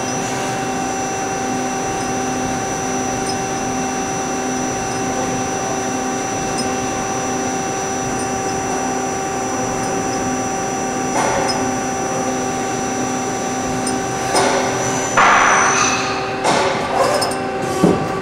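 Okuma & Howa ACT-35 CNC slant-bed lathe running an automatic cycle: a steady machine hum with several steady whines. In the second half come a few short hissing, knocking bursts, the loudest a hiss a few seconds before the end.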